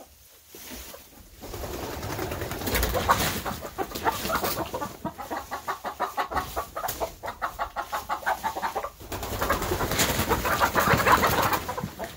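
Domestic hens clucking in rapid runs of short calls, several a second, with bursts of wing flapping as they fly down from the roost.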